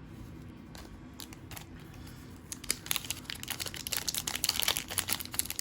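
Foil wrapper of a trading-card pack crinkling as it is handled and torn open, a dense crackling that starts about two and a half seconds in after a few faint ticks.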